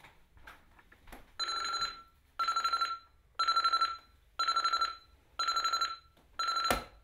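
Sony digital alarm clock going off: six bursts of rapid high beeping, one a second. A loud thump near the end, as the clock is hit, cuts the last burst short.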